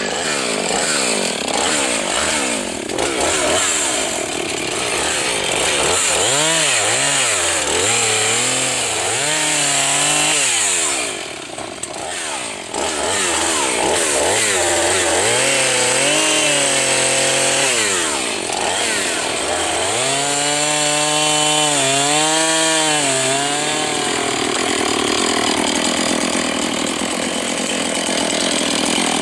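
Gas chainsaw cutting into a fallen tree trunk, the engine revving up and sagging again and again as the chain bites into the wood, with a short drop toward idle a little under halfway through.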